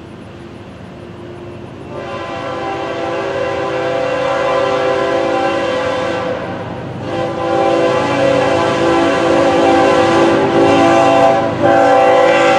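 Diesel freight locomotive's multi-note air horn, sounding as the train approaches: a long blast about two seconds in, a short break, then a second long blast, with another starting just before the end. The horn grows louder as it comes closer.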